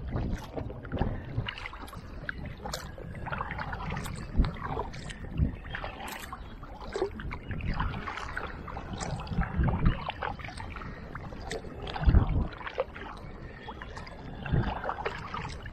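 Inflatable Intex Challenger kayak being paddled along a creek: irregular paddle strokes splashing and dripping, with water lapping at the hull.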